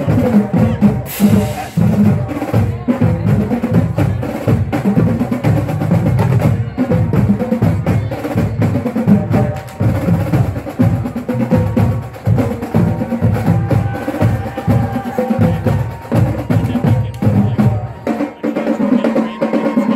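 Marching band drumline of snare and bass drums playing a fast cadence, a dense run of strikes. The deep bass drum sound drops out about two seconds before the end.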